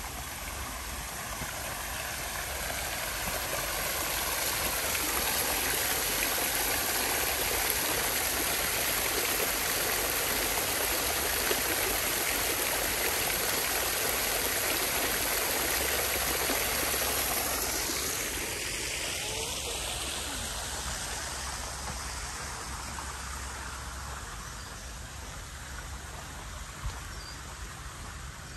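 Small garden fountain splashing and trickling from its stone bowl into the basin below. The sound of the water grows louder over the first few seconds, holds steady, then fades from about two-thirds of the way through.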